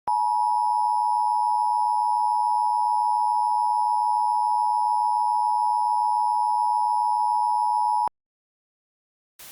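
Emergency Alert System attention signal: a loud, steady two-note electronic tone held for about eight seconds, then cut off abruptly.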